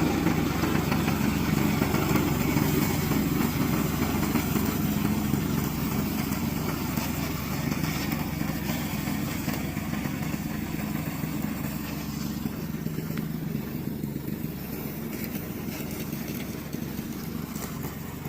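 Engine of a remote-controlled tracked slope mower running steadily, slowly growing quieter.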